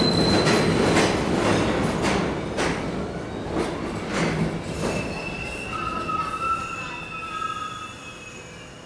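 R68 subway train rolling into a station on steel wheels, clicking over rail joints, the clicks spacing out and the rumble fading as it slows. About five seconds in, a thin high squeal sets in for a few seconds as the train brakes toward a stop.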